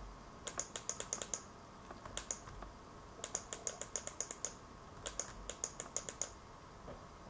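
Computer mouse button clicked rapidly in four quick bursts of sharp clicks.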